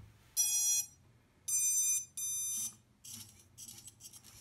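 Quadcopter brushless motors beeping as their BLHeli_S ESCs power up from a freshly connected battery: one beep, then two higher beeps about a second later, the start-up signal that the ESCs are live. Faint handling rustle follows.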